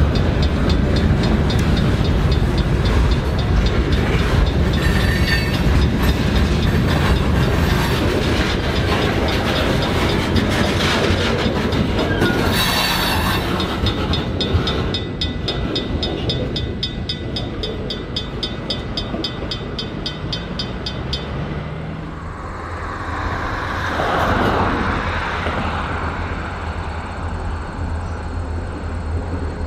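Freight cars of a train rolling past, wheels clacking and rumbling on the rails, with a grade-crossing bell ringing rapidly and evenly until about halfway through, when it stops as the last car clears. After that a quieter, steadier rumble with one brief swell near the end.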